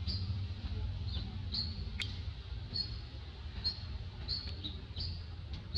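Short high-pitched animal chirps, repeating irregularly about one or two a second over a low steady rumble, with one sharp click about two seconds in.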